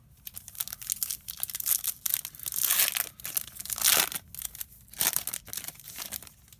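Foil-lined wrapper of a Topps baseball card pack crinkling and being torn open by hand. There is a dense crackle with the loudest rips about three seconds in and again about four seconds in.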